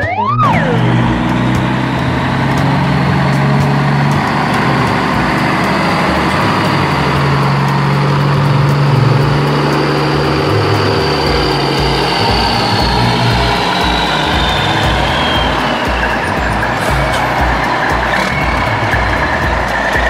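Heavy construction machine engine sound effect running steadily with a loud, noisy hiss. About halfway through, a regular low thumping of about three beats a second joins in.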